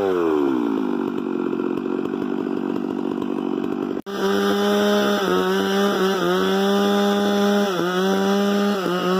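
Chainsaw engine slowing from high revs to a low, uneven idle. It cuts off abruptly about four seconds in, then comes back running at full throttle, with its speed dipping briefly three times.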